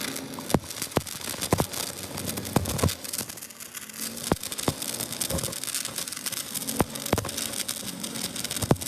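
Electric arc welding: a steady crackling hiss with irregular sharp pops.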